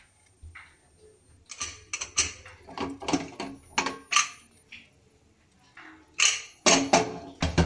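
Aluminium pressure cooker lid being worked loose and lifted off, with a run of metal clicks and clanks. The loudest clatter comes near the end.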